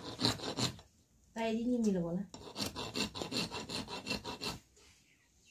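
A short voice sound about a second and a half in, followed by about two seconds of quick, close rubbing strokes.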